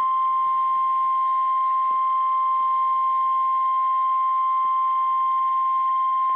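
NOAA Weather Radio warning alarm tone, the steady 1050 Hz beep held without a break. It is the signal that a warning message, here a tornado warning, is about to be broadcast.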